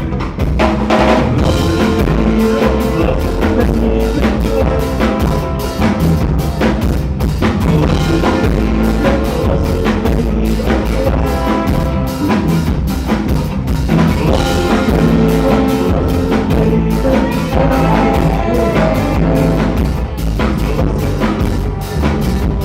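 Live ska band playing an instrumental passage: steady drum kit with rimshots and snare, bass and sustained horn or keyboard lines, with no singing.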